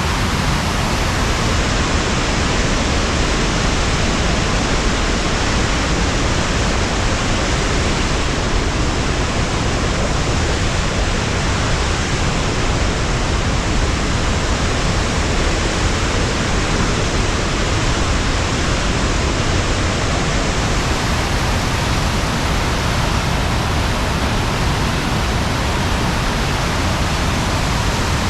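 Waterfall in flood after heavy rain: a loud, steady rushing roar of high water. Likely some wind on the microphone adds to the low rumble.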